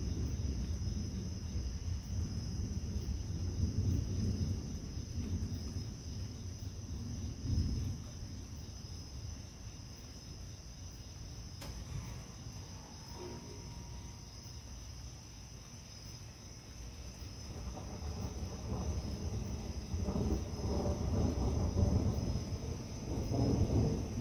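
Rolling thunder rumbling low and long, dying down around the middle and building again in the last third. Crickets chirr steadily behind it.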